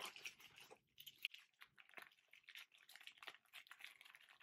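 Faint crinkling and small clicks of the clear plastic sleeves on a bundle of makeup brushes being handled; otherwise near silence.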